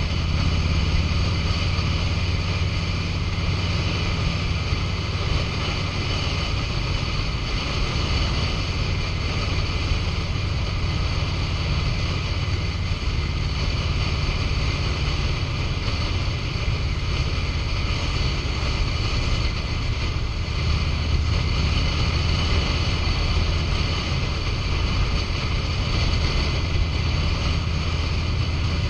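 2005 Harley-Davidson Road King's Twin Cam 88 V-twin engine running steadily at freeway speed, under wind rushing over the microphone and tyre roar.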